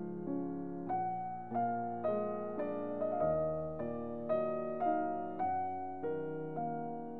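Background piano music: a gentle melody of single notes, struck about two a second, each ringing and fading before the next.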